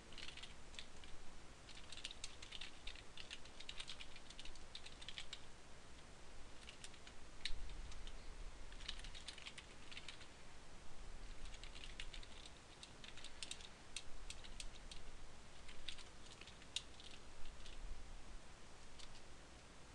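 Computer keyboard being typed on, keystrokes coming in irregular bursts with short pauses between them.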